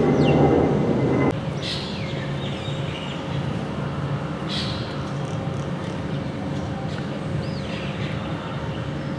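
Jet airliner engine noise from a twin-engine airliner climbing away overhead, cutting off abruptly a little over a second in. After that, short bird chirps come every few seconds over a steady background hum.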